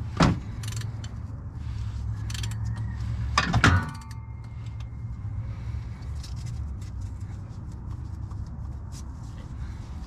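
Metal hand tools clinking on the Honda Civic's engine while the crank is turned over by hand after a single-piston swap, with two sharp metal clanks, one just after the start and one about three and a half seconds in, followed by small irregular clicks. A steady low hum runs underneath.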